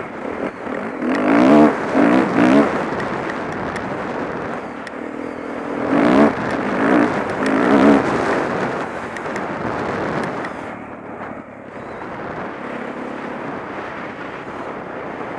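Honda CRF450 dirt bike's single-cylinder four-stroke engine running and revving. It comes up in loud surges twice, about a second in and again around six seconds in, and runs steadier in between.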